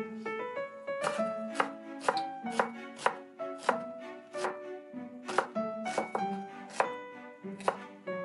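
Chef's knife slicing shallots on a wooden cutting board, an uneven run of sharp knocks of the blade on the wood, about one or two a second, over background music.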